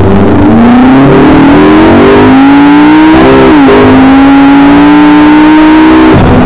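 McLaren MP4-12C's twin-turbo 3.8-litre V8 under hard acceleration, heard inside the cabin. The engine note climbs steadily, drops sharply with an upshift about three and a half seconds in, then climbs again. Loud and distorted.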